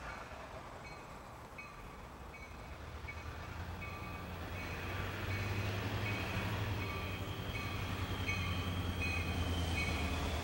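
A low rumble growing gradually louder, with a short high tone repeating steadily above it.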